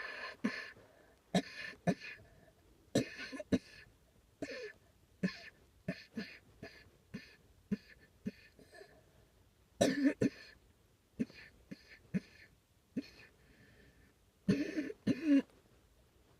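A person coughing over and over: short, sharp coughs in irregular clusters of two or three, with pauses of a second or more between them.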